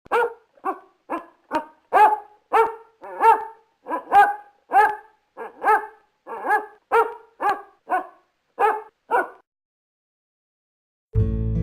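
Basset hound barking in a quick, steady run of about nineteen barks, roughly two a second, which stops after about nine seconds. Acoustic guitar music starts near the end.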